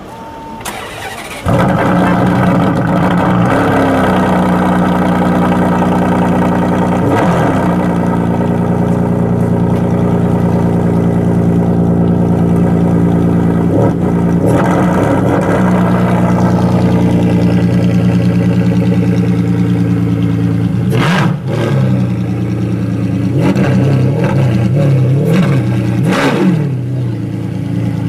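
Ferrari Enzo's V12 engine being started: a second or so of cranking, then it catches with a sudden loud burst and settles into a steady fast idle. It is blipped briefly a few times, then revved several times in quick succession near the end.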